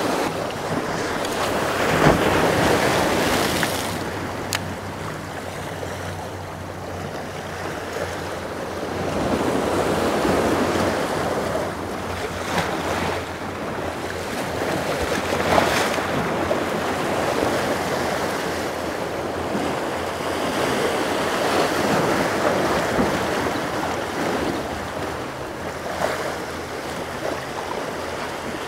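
Surf washing against a jetty, the wash swelling and fading every few seconds with a few louder surges, and wind buffeting the microphone.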